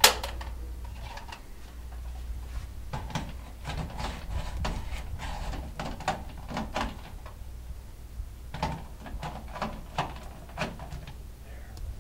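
Plastic clicks, snaps and knocks of a smoke detector being handled as its battery door is opened and the battery swapped, with a sharp snap at the start and irregular clicks after it.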